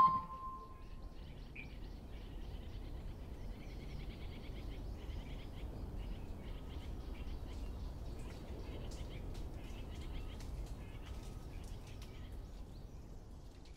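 Faint outdoor ambience: birds chirping over a low steady rumble, fading out at the very end. A single ringing chime note dies away at the start.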